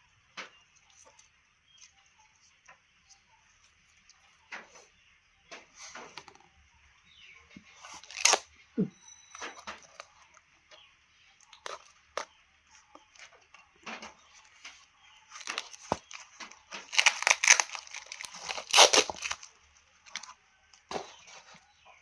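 Irregular rustling, crinkling and tearing, as of plastic packaging being ripped open and handled by hand, with scattered clicks and a loud run of tearing near the end.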